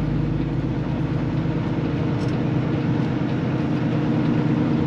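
Semi truck's diesel engine running as the truck rolls slowly, heard from inside the cab: a steady low rumble.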